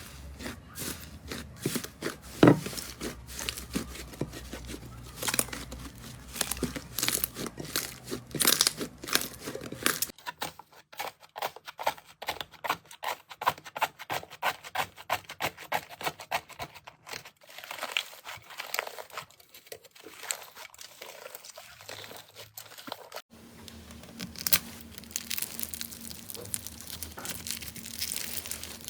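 Slime being squeezed and poked by hand, giving off rapid, irregular crackling and crinkling pops. The sound changes abruptly about ten seconds in and again about twenty-three seconds in, as one clip cuts to the next.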